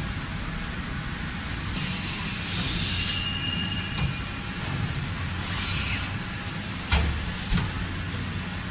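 Industrial machine running with a steady low hum, broken by two bursts of high hissing and a few sharp knocks near the end.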